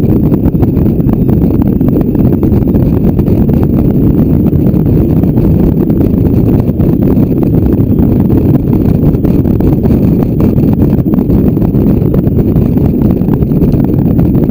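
Steady low wind rumble on the microphone of a camera riding on a moving motorcycle at road speed, with the motorcycle running under it.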